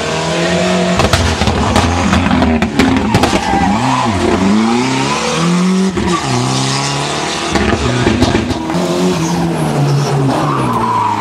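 Ford Sierra Cosworth Group A rally car's turbocharged Cosworth YB four-cylinder engine at full throttle on a stage, the revs falling and climbing again twice around the middle as it brakes and shifts for corners. Sharp cracks sound over the engine between about one and four seconds in.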